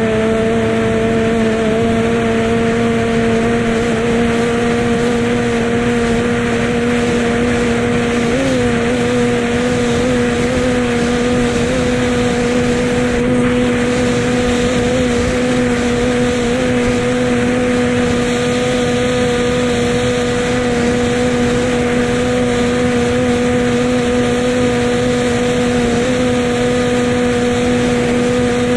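Racing powerboat engine running flat out at a steady high pitch, with one brief wobble in pitch about eight seconds in.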